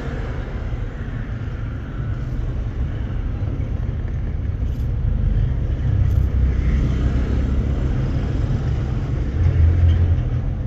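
Toyota Wigo's three-cylinder engine idling as a steady low rumble that swells briefly near the end. The engine is misfiring, with the scan tool reporting a cylinder 3 injector circuit fault (P0203).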